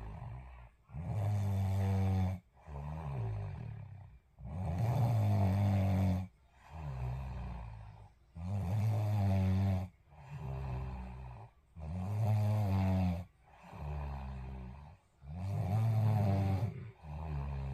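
Heavy snoring in a steady rhythm: five long, loud snores, one about every three to four seconds, with a quieter snoring breath between each pair.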